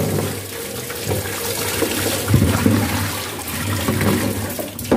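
Kitchen tap running into a plastic basin, the water splashing as raw chicken is washed in it by hand.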